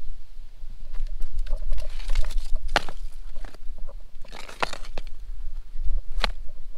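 Loose chunks of mine waste rock knocking and scraping against each other as a gloved hand turns over and lifts a slab, with a few sharp clacks about a second and a half apart over a steady low rumble.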